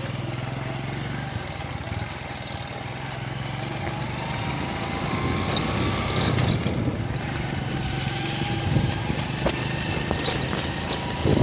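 A small engine running steadily, with a faint whine that rises slowly through the first half.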